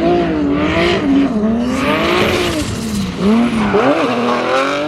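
Turbocharged drift car engine revving up and down as the car drifts, its pitch rising and falling several times with a quick sharp rise near the end, over the screech of spinning tyres.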